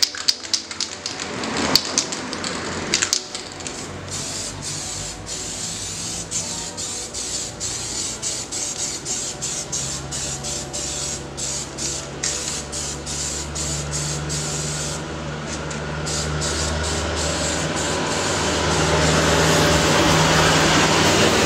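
Aerosol spray paint can hissing in many short bursts as paint is sprayed onto a motorcycle wheel rim. A low steady hum comes in a few seconds in and grows louder near the end.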